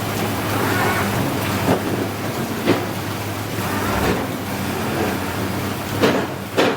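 Sany SR150C hydraulic rotary piling rig at work drilling a bored-pile hole: a steady engine hum under a rushing, noisy hiss, with a few sharp metal knocks, two of them close together near the end.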